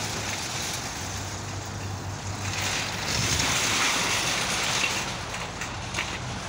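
Outdoor traffic noise: a steady low hum under a rushing noise that swells a few seconds in, with a few faint clicks near the end.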